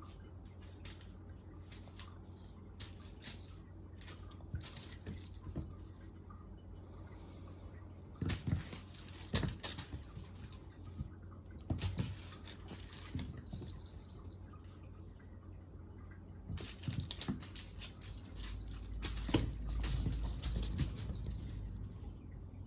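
Cats playing with a cat-teaser wand: scattered pattering, scratching and rustling of paws and toy, coming in short bursts that grow busier and louder in the second half.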